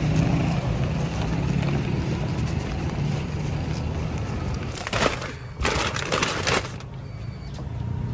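Paper grocery bag rustling and crinkling in a car, in a few bursts about two-thirds of the way through, over the car's steady low cabin rumble.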